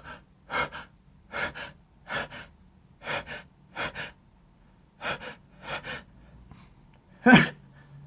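A man's quick, sharp gasping breaths, mostly in pairs and repeating about every two-thirds of a second, build up to one loud sneeze near the end. It is an allergic sneeze set off by flower pollen in his nose.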